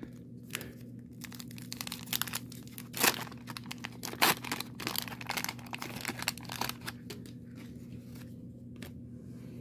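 Waxed paper wrapper of a 1990 Donruss baseball card pack being torn open and crinkled by hand: a rapid run of crackles, with two louder tears about three and four seconds in, thinning out over the last couple of seconds.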